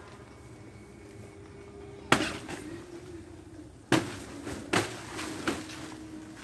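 Blade chopping into a banana plant's trunk to fell a bunch of kepok bananas: four sharp blows, the first about two seconds in, then three more in quicker succession near the end.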